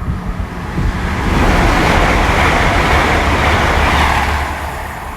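A train passing through the station: a loud rushing noise swells about a second in, holds for about three seconds, then fades away over a low rumble.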